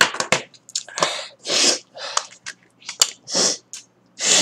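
Several short breathy puffs, each under half a second, with small sharp plastic clicks between them as a mobile phone is handled and its battery taken out.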